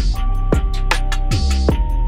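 Background music with an electronic beat: deep bass-drum hits that fall in pitch, quick hi-hat ticks and held synth notes.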